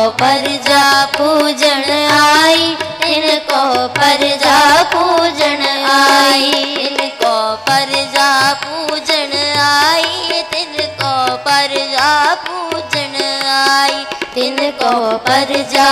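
Sikh kirtan: a woman singing a shabad in a devotional melody with ornamented, gliding phrases over a steady harmonium drone, with tabla keeping a rhythm.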